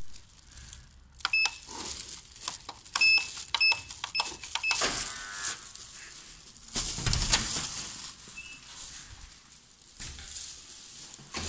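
Buttons pressed on a backlit door-entry keypad, each press giving a short electronic beep, about five beeps in a few seconds. A brief buzz follows, then the entrance door is pushed open with a clunk and rustle.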